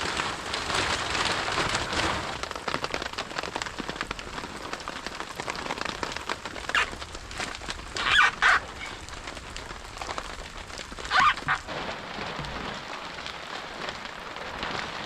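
Steady rain falling, with a few short louder noises about 7, 8 and 11 seconds in.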